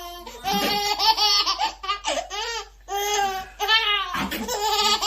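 A baby laughing: a run of high-pitched squealing laughs broken by short pauses.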